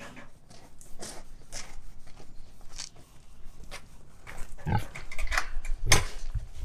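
An arthritic pig grunting a few times in the second half, loudest at about six seconds in, among scattered clicks and rustles.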